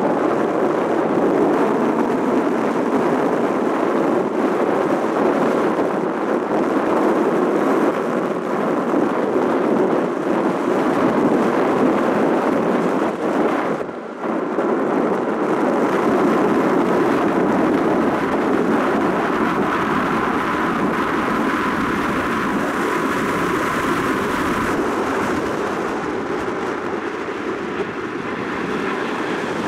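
Jet noise from the two CFM56-7 turbofans of a Boeing C-40C Clipper (military 737-700) climbing away overhead at high power. The noise is steady, dips briefly about halfway through, and eases slightly near the end as the aircraft recedes.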